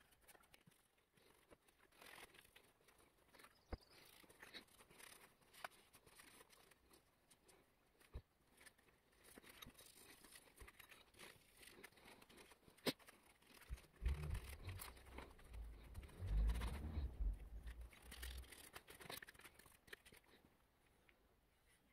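A cloth wiping a small metal EGR valve held in gloved hands: faint rubbing with scattered light clicks as the part is turned over. A louder low rumble comes for a few seconds past the middle.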